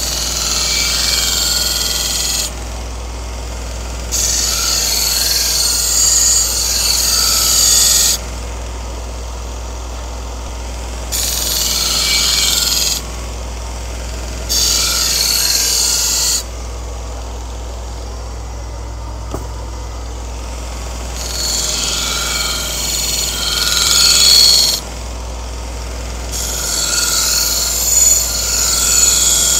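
A 2x42 belt grinder running with a felt belt loaded with blue compound. A knife edge is drawn across it in about six separate passes, each a hiss lasting a few seconds over the motor's steady hum, deburring the freshly sharpened edge.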